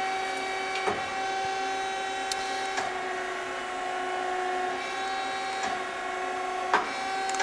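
Hyundai HIT-15 CNC lathe running with a steady hum of several held tones, its pitch dipping slightly for a couple of seconds partway through, while the tailstock is brought in. A few sharp clicks sound about one, three, six and seven seconds in.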